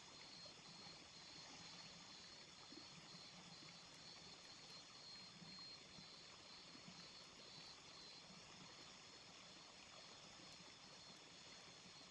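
Faint steady hiss of a small river flowing, with a faint high-pitched pulsing trill that stops about two-thirds of the way through.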